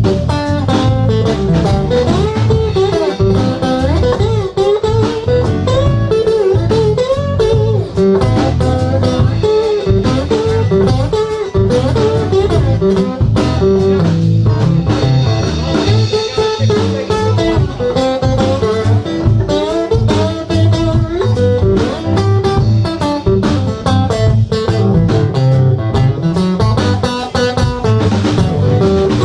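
Live blues-rock band playing an instrumental passage: acoustic and electric guitars with keyboards, bass and drums, a bending lead line winding over a steady beat.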